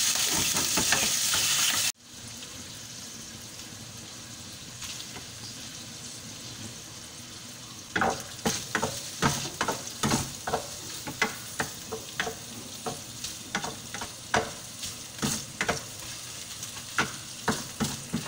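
Ground pork frying in oil in a nonstick pan, sizzling loudly at first, then dropping suddenly to a softer steady sizzle about two seconds in. From about eight seconds in, a wooden spoon stirs the meat and knocks against the pan about twice a second.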